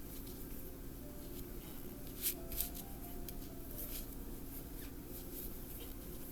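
Soft rustling and light clicks of a crochet hook and yarn being worked around a charging cable, with two sharper clicks a little past two seconds in.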